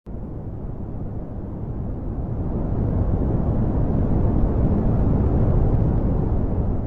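Deep, rumbling noise from a space-sound recording, starting abruptly and swelling louder toward the middle, without any clear pitch.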